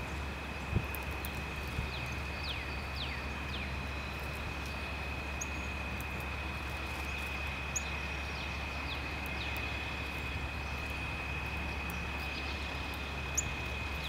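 Outdoor ambience: a steady low rumble and a steady high-pitched tone, with faint, short, downward-sliding bird chirps scattered throughout.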